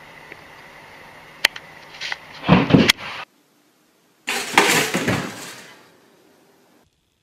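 A sharp click, then a loud clattering scuffle about two and a half seconds in. About four seconds in a pop-up toaster springs up with a sudden loud clack, and the startled cat jumps down off the counter; the noise fades over a second or so.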